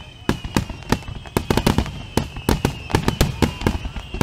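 Aerial firework shells bursting in a rapid barrage: a quick, irregular run of sharp bangs and crackles that grows denser toward the end.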